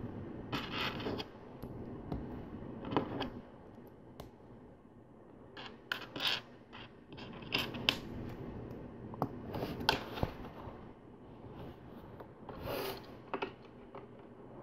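Plastic LEGO bricks being handled and pressed together: an irregular string of small sharp clicks and light scrapes.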